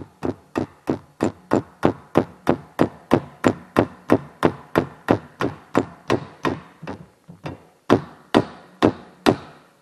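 Small hammer tapping a roll pin into a new clutch master cylinder for a 2000 Ford F-350, metal on metal. Steady taps about three a second, a short pause about seven seconds in, then a few harder blows.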